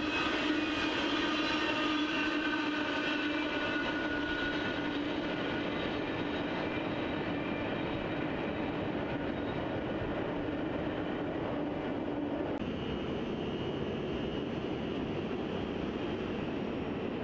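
Intermodal freight train rolling past, with steady ringing tones over its rumble that fade out in the first few seconds as the last cars clear. About two-thirds of the way through the sound changes abruptly to a steady outdoor rumble with a faint high tone.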